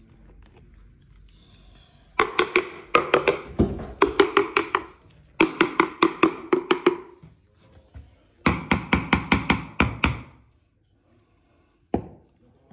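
Rapid hollow knocking in four bursts, each a quick run of about six ringing strikes a second, then one single knock near the end.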